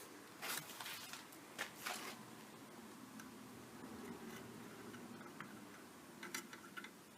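A few faint clicks and knocks of hands and tools handling the parts of an opened window air conditioner, in two short clusters, one near the start and one near the end.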